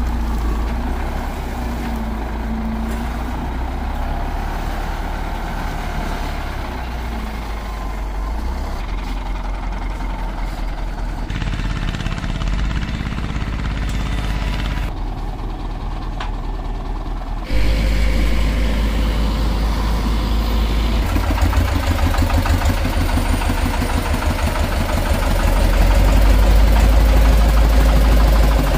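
Diesel engines running steadily, including a wheel loader raising a trailer. About two-thirds of the way through, a close single-cylinder diesel on a Kubota two-wheel walking tractor comes in suddenly. It runs with a rapid, even thumping that is loudest near the end.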